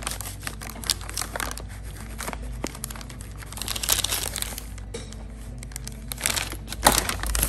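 Food packaging crinkling and rustling, with small clicks and knocks, as lunch items are handled and packed. It gets louder about four seconds in and again near the end.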